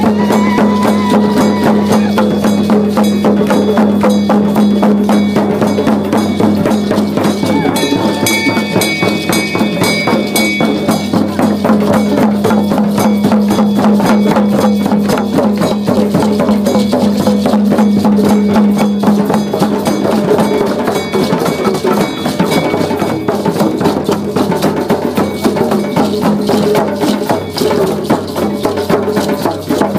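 A drum circle of hand-held frame drums and djembes beating a fast, steady group rhythm, with a steady low hum running beneath the strokes.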